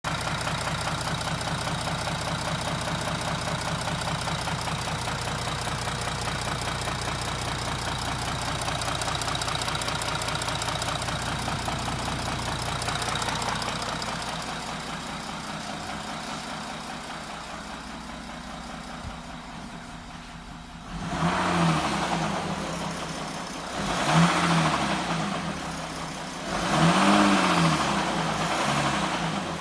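2017 Audi Q7 engine running with a fast, regular knocking that the owner reports as an engine knock. Later it is revved three times, the pitch rising and falling with each rev.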